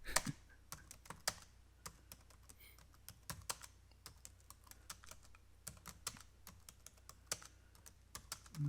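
Typing on a computer keyboard: a run of irregular keystroke clicks, a few a second, with a couple of louder taps near the start.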